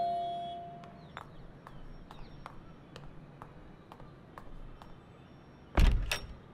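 A chime's ringing note fading out, then faint footsteps on a hard floor, ticking about twice a second. Near the end comes a loud double clunk of a front door's lock and handle being worked.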